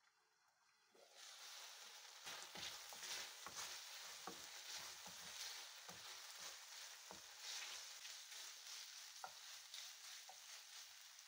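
Spiced chicken pieces sizzling in a hot metal frying pan, starting about a second in, while a wooden spatula stirs them, with frequent clicks and scrapes against the pan.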